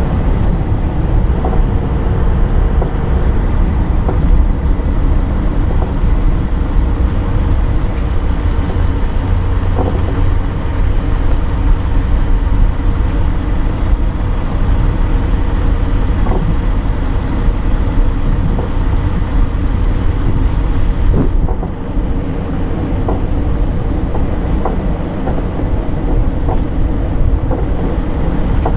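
Car driving, with a steady low rumble of engine and tyres on the road and scattered small clicks.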